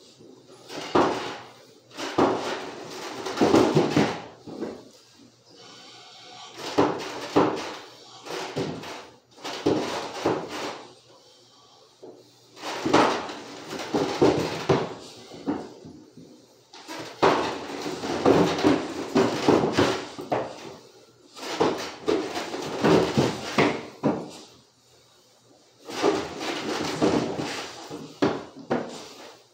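Heavy footsteps and knocks on the stairs as an upright piano of about 750 lb is carried down a flight of steps on one mover's back. The clunks come in irregular bursts every one to three seconds, with short quiet gaps between them.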